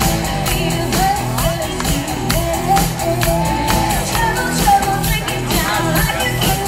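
Live rock band playing loud amplified music with a singer, drums keeping a steady beat under electric guitar and keyboard.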